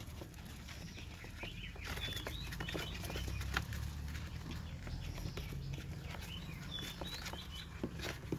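Newborn rabbit kits scrabbling against a plastic tub and against their mother as they jostle to nurse, in a scatter of small clicks and scuffs, with brief high chirps now and then over a steady low rumble.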